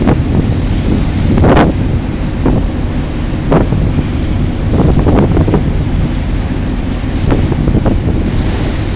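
Strong wind buffeting the microphone on an open ferry deck: a heavy low rumble with gusts flaring up several times, the strongest about a second and a half in.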